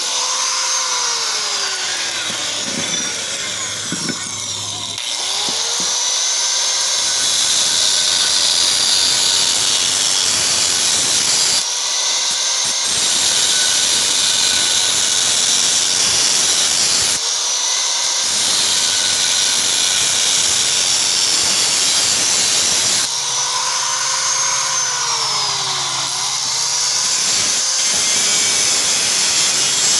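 Electric angle grinder with an abrasive disc cutting and grinding a steel vise jaw plate. The motor whine sags in pitch as the disc bites into the metal and climbs back when it eases off, several times over.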